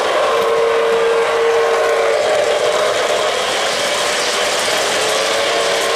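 O-gauge model trains running on three-rail track: a steady rolling rumble and clatter of wheels and motors. A held tone sounds twice, for about two seconds near the start and again near the end.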